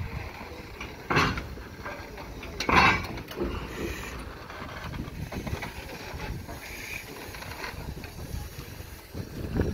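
Wood-fired steam locomotive starting to roll slowly: two loud steam chuffs about a second and a half apart, then it runs on more quietly.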